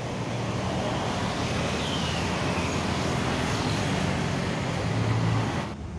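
Street traffic: a steady din of passing road vehicles with a low engine hum, cut off abruptly near the end.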